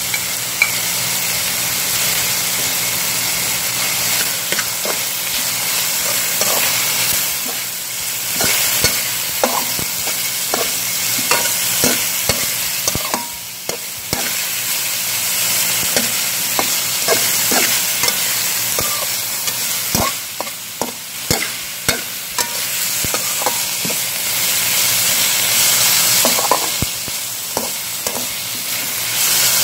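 Chicken, ginger, onion and wood ear mushroom sizzling in a hot wok while a slotted metal spatula stirs them, its edge knocking and scraping against the pan in irregular strokes.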